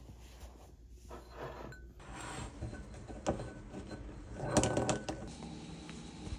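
Eggs knocking against the bowl they sit in as a hand picks them out: scattered light knocks, then a louder clatter of several quick clicks about four and a half seconds in.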